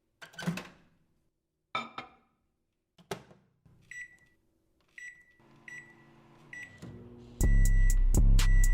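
Microwave oven being started: a few clicks and knocks, four short keypad beeps, then the oven's steady hum as it begins to run. About seven seconds in, loud music with a drum beat comes in over it.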